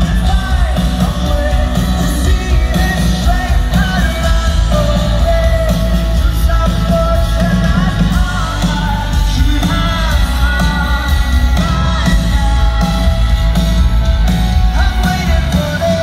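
Live rock band playing through a large concert PA, heard from among the audience: a lead singer over electric guitar and drums, with heavy, steady bass.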